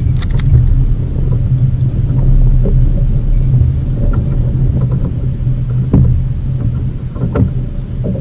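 Steady low wind noise buffeting the microphone, with a few short knocks about six and seven seconds in.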